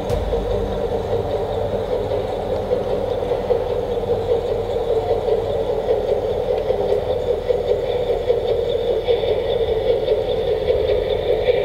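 G-scale LGB model train rolling past: the steady hum of the locomotive's electric motor and the rumble and rattle of freight wagon wheels on the track, with some higher ringing joining in over the last few seconds.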